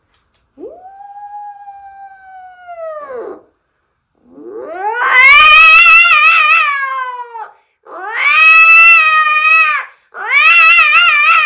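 A person's voice mimicking cats caterwauling in a quarrel: four long drawn-out yowls, the first quieter and lower, the other three loud, each swelling up and dropping in pitch as it ends.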